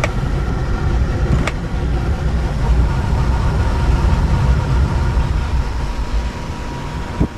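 Electric panoramic sunroof of an MG SUV sliding open, over a steady low rumble. A faint steady whine comes in about three seconds in and stops with a click near the end; there is also a click about a second and a half in.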